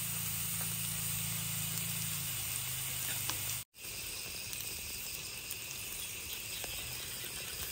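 Meat sizzling on the grill dome of a sindad (mu kratha) pot over a portable gas stove, a steady sizzle and hiss. A low hum fades out about two seconds in, and the sound cuts out for a split second just under four seconds in.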